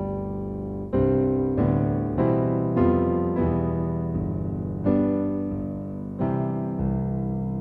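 Background piano music: slow notes and chords struck one after another, each ringing and fading.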